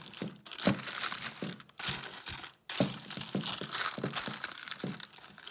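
Baking paper crinkling and rustling in irregular crackles as hands press and fold it into a square glass baking dish, with a short lull about two and a half seconds in.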